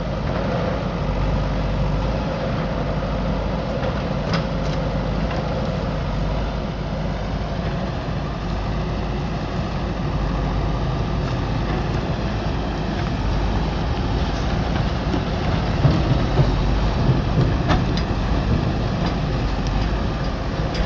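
JCB backhoe loader's diesel engine running steadily while it works, with a few sharp knocks, one about four seconds in and several near the end.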